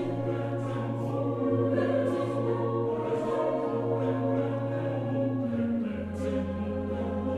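Background music: a choir singing long, held notes over a low sustained note that steps down in pitch about six seconds in.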